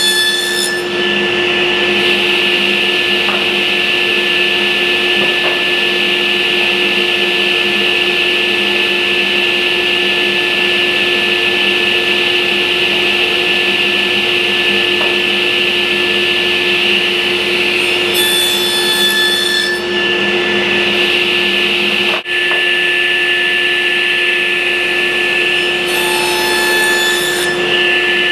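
Table saw with a dado blade running steadily, cutting spline slots across the mitered corners of cherry picture frames held in a jig. The sound changes briefly twice in the later part.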